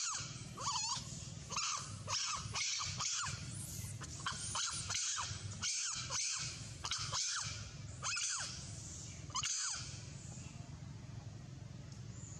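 Monkey screaming, a run of shrill cries one or two a second that stop about ten seconds in.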